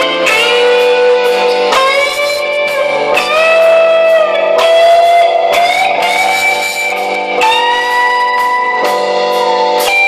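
Instrumental rock band playing live: an electric lead guitar carries a slow melody in long sustained notes, bending up into each new note, over bass guitar and drums.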